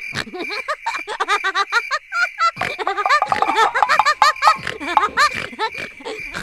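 Rapid, high-pitched giggling laughter in quick successive bursts over background music, with a short pause about two seconds in.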